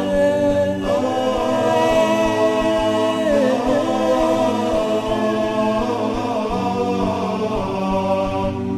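A cappella nasheed: layered voices singing long, held, chant-like notes with slow changes in pitch and no instruments.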